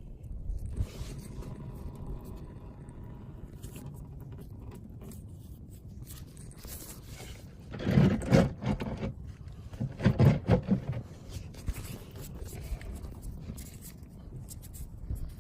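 Scraping and clattering of an oil filter wrench working the oil filter loose, with two louder rough bursts about two seconds apart past the middle.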